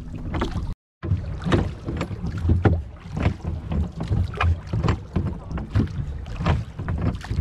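Oars dipping and splashing as a small wooden dinghy is rowed through choppy water, with wind rumbling on the microphone. The sound drops out completely for a moment about a second in.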